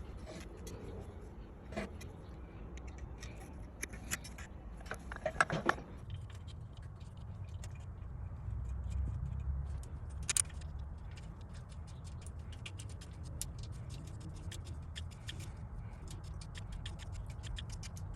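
Light metallic clicks and clinks of hand tools on engine parts, a few sharper knocks among many small ticks, over a low steady hum.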